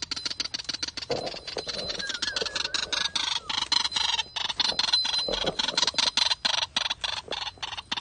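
White-breasted waterhens calling: a fast, unbroken series of repeated notes, with a falling stepped note about two seconds in.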